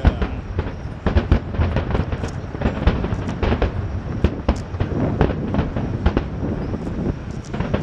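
Fireworks display: a dense, unbroken run of bangs and crackles from many shells bursting in quick succession over a low rumble.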